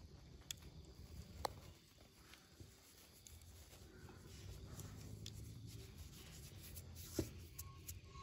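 Faint low bubbling of milk boiling in a wide kadhai, a little fuller in the second half, with a few light knocks of a steel ladle against the pan, the loudest just after seven seconds.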